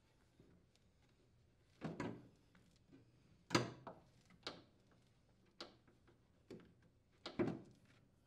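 Faint scattered knocks and clacks of a refrigerator's condenser fan motor mounting bracket being handled and fitted into its base: about six separate handling sounds, the loudest about three and a half seconds in.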